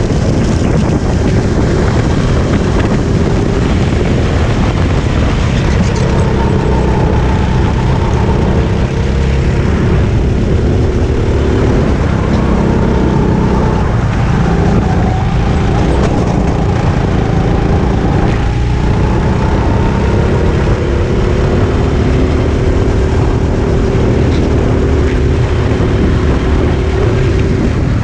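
Onboard sound of a Sodi RT8 rental go-kart's single-cylinder four-stroke engine running hard, its pitch rising and falling with throttle through the corners, over a steady rushing noise.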